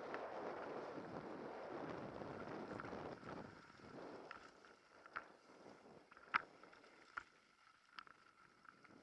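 Mountain bike rolling fast down a dirt singletrack: steady rolling and wind noise for the first few seconds that then dies away, leaving scattered sharp clicks and rattles from the bike and pack, the loudest about six and a half seconds in.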